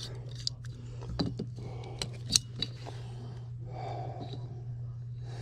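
Scattered clicks and clinks of hand tools being handled and positioned on a condensate drain line, over a steady low hum.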